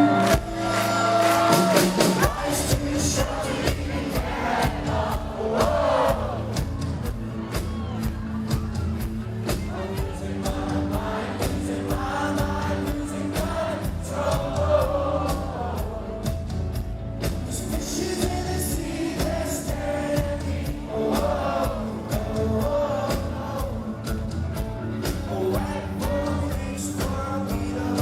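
Rock band playing live with a lead vocal. Sustained chords open, then the drums and the full band come in about two seconds in, with the singing carrying over the beat.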